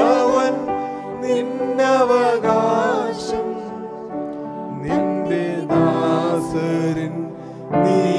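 Christian worship song sung by a small group into microphones, with acoustic guitar accompaniment, in phrases of a few seconds each with held notes.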